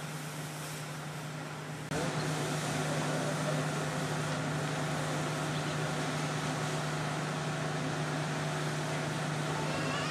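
A steady mechanical hum with one constant low tone under a background hiss, stepping up in level about two seconds in.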